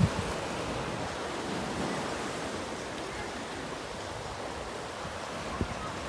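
Small sea waves washing in and breaking on a pebble beach, a steady rushing wash with one brief knock near the end.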